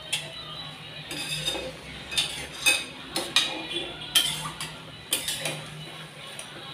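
Stirring spinach in masala in a stainless steel pan: the spatula scrapes the pan and knocks against its side in irregular clinks.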